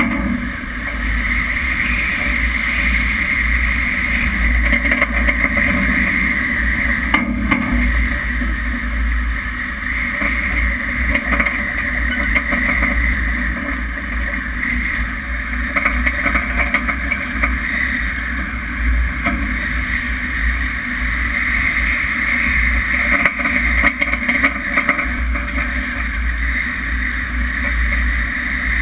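Steady rushing noise of a ship's bow ploughing through rough seas, with wind and a heavy low rumble underneath, swelling and easing slightly.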